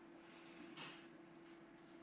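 Near silence: room tone with a faint steady hum and one brief soft rustle about a second in.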